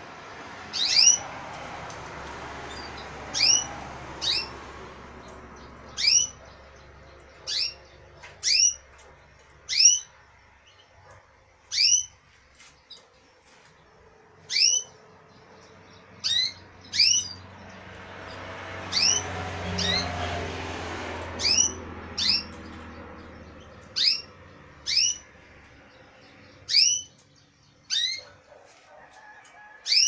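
Caged finches giving repeated single sharp chirps, one every second or two at irregular intervals, with a soft rushing noise swelling in the background twice.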